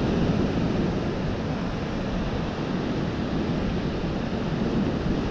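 Steady wind and surf noise, an even low rumble with no distinct events.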